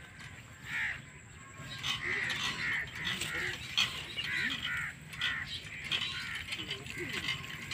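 Hand water pump being worked, its handle mechanism creaking and clicking, with crows cawing repeatedly.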